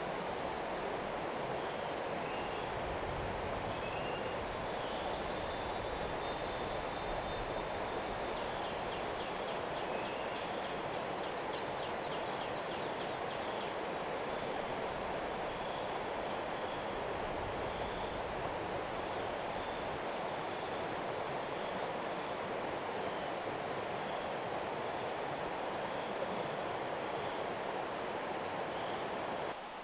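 Steady outdoor rushing noise, even and unbroken, with scattered faint high chirps, a held high whistle and a quick run of high ticks in the middle.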